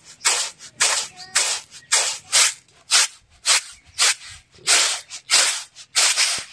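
Split urad dal and husks hissing and rattling in a stick-woven winnowing basket (soop), tossed in rhythmic strokes about two a second: the husks are being winnowed off the dal.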